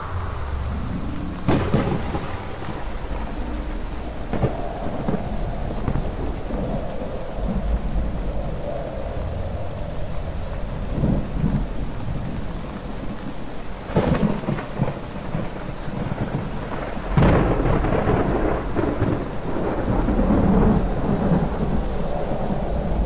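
Thunderstorm: steady rain with rumbling thunder and a few sharp thunderclaps, one near the start and two more, a few seconds apart, after the middle.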